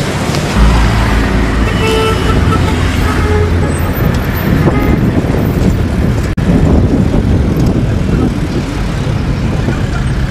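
Loud, dense road traffic noise with a short horn toot about two seconds in, and a momentary dropout a little after six seconds.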